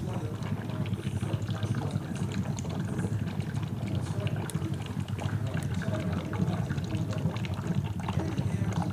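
Steady dense bubbling and gurgling of HHO gas from a running 118-plate electrolysis cell passing through water in plastic reservoir tanks.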